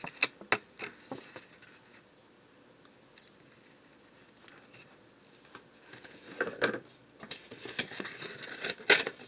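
Light handling of paper swatch cards and balled-up washi tape on a tabletop: a few sharp clicks and rustles at first, a quiet stretch, then more paper rustling and taps from about six seconds in.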